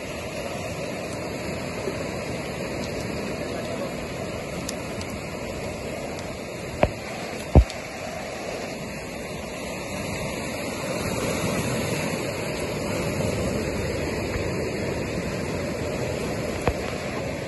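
Ocean surf washing over a cobble beach, a steady rush that swells a little past the middle. About seven seconds in come two sharp knocks, a little under a second apart, with a fainter one near the end.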